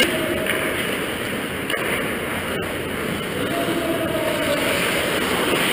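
Ice hockey rink noise from the back of the net: a steady rush of skates on ice and the arena's echo, with one sharp tick about two and a half seconds in.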